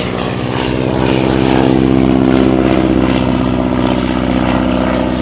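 Propeller-driven vintage biplane flying low overhead, its engine drone swelling to its loudest about two seconds in and then easing off as it passes.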